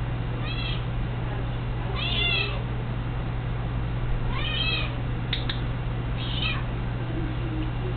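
Domestic cat meowing four times, each call rising then falling in pitch, with two sharp clicks a little after the third meow.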